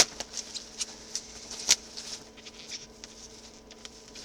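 Light rustling, scratching and small clicks of packaging and a framed picture being handled and unwrapped by hand, with a sharp click at the very start and another about a second and a half later, over a faint steady hum.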